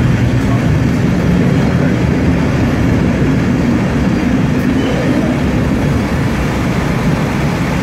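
Loud, steady rumble of a heritage passenger carriage running on the rails, heard from inside the carriage.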